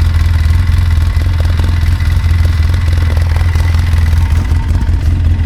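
Side-by-side UTV engine running loud and steady, with no clear rise or fall in pitch.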